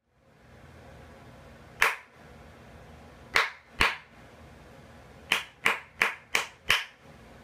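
Hand claps: a single clap, then two close together, then a quick run of five, about three a second, over a faint steady background hiss.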